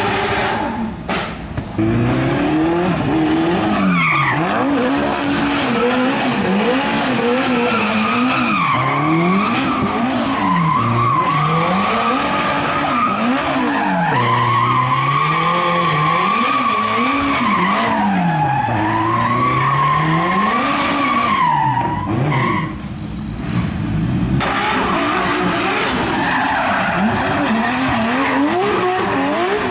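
Car engine revving up and down again and again under a long wavering tyre squeal: a car being slid or spun round on its tyres. The squeal and engine drop away briefly about three quarters of the way through, then pick up again.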